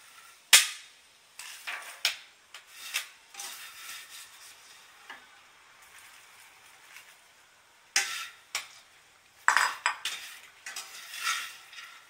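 Metal wire skimmer knocking and scraping against a wok while scooping out popped popcorn, with the dry rustle of the popcorn being tipped into a glass bowl. Irregular sharp clicks and scrapes, the loudest about half a second in and a cluster of them about eight and ten seconds in.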